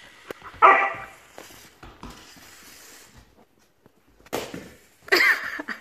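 Alaskan shepherd (Malamute–German Shepherd mix) puppy barking: one loud bark about half a second in, then two more near the end.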